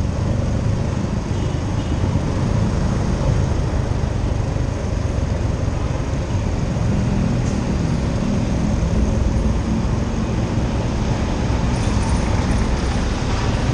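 Motorcycle riding slowly in city traffic: a steady mix of engine, road and wind noise with a low rumble.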